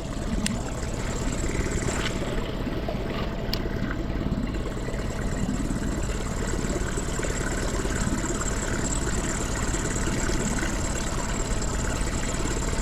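Outboard motor of a small inflatable boat running steadily at idle.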